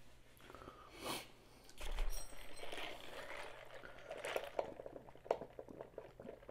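A thump about two seconds in, then a drink being sipped through a straw from a large paper fountain cup, with wet slurping.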